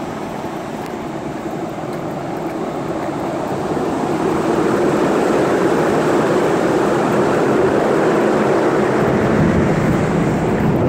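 Steady rushing roar of wind buffeting the phone's microphone on a cruise ship's open deck, growing louder about four seconds in and then holding.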